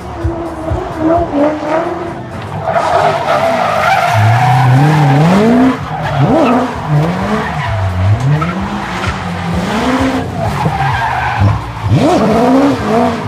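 Chevrolet Corvette C6's V8 revving up and down over and over while drifting, with tyres squealing and skidding on the asphalt.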